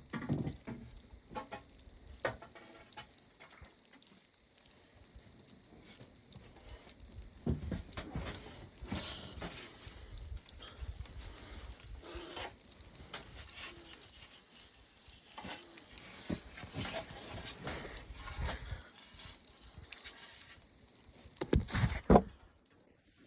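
Canoe paddle striking and breaking ice: irregular knocks and cracks at uneven intervals, a few stronger hits among fainter ones, the loudest a quick pair near the end.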